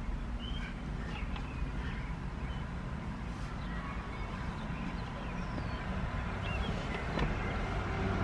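Steady low rumble of a car idling, heard inside the cabin, with a few faint short bird chirps over it.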